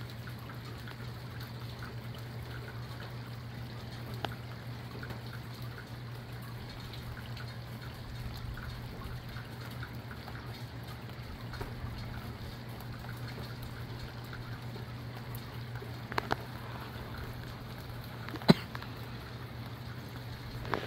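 Steady rain with water trickling and dripping, scattered small drip ticks and a few sharper taps, the loudest about 18 seconds in, over a steady low hum.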